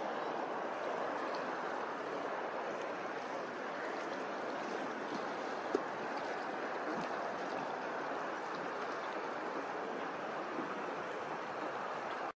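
Steady rush of open water lapping and rippling, with one brief knock about halfway through.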